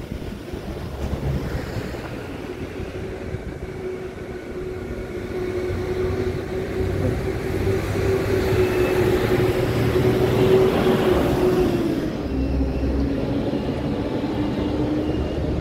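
A passing vehicle: a steady hum with a held tone grows louder, then drops in pitch and level about twelve seconds in as it goes by.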